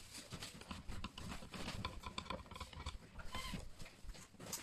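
Screwdriver working the screws inside a handgun safe's housing: an irregular run of small clicks, taps and scrapes of the tool against metal and plastic.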